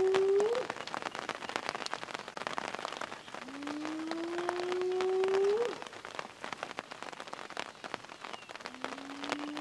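Spotted hyena whooping: long calls that rise slowly in pitch and then sweep sharply up at the end. One call ends just after the start, a second runs from about three and a half to nearly six seconds in, and a third begins near the end. Underneath is a patter of rain on the vehicle's rain roof.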